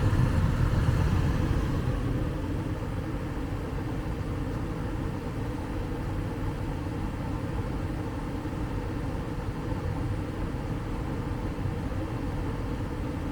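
ICP gas furnace running with its burners firing and draft inducer motor turning, a steady low rumble that is a little louder in the first two seconds. Its burners are misaligned, with the flames impinging on the heat exchanger inlet and producing high carbon monoxide.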